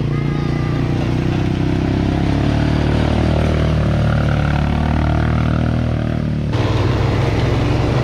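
ATV engines running steadily as the quad bikes are ridden along a rough dirt track, the sound changing abruptly about six and a half seconds in.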